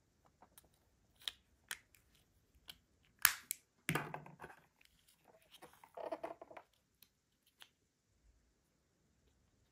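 Small plastic packaging being handled and opened: scattered clicks and crackles, with a sharp snap about three seconds in and two short crinkling rustles shortly after.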